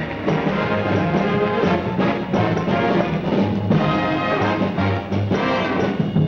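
Orchestra playing, with brass prominent.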